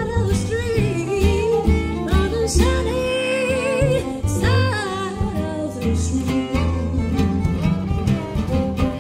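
Gypsy swing played live on harp, fiddle and guitar, with a woman singing over it.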